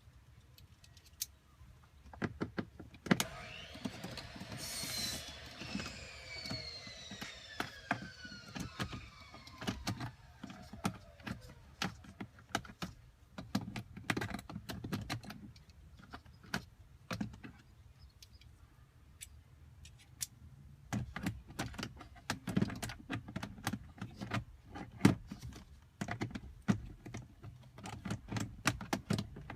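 Plastic dashboard trim and glovebox of a 2002 Honda Accord being worked loose by hand: scattered clicks, knocks and rattles of plastic parts and screws, with a drawn-out squeal that falls steadily in pitch from about three seconds in.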